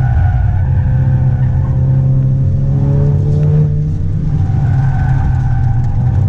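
Car engine heard from inside the cabin on a hill-climb run: a steady drone that dips briefly about four seconds in, then climbs again.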